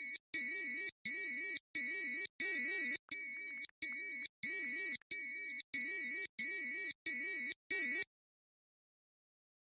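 Emergency alert alarm: a high-pitched electronic beep repeating about once every 0.7 seconds, around a dozen beeps, stopping suddenly about eight seconds in.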